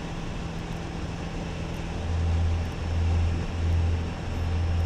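Light aircraft engine running steadily, heard from inside the cockpit, with a low hum that swells and fades in slow pulses from about two seconds in.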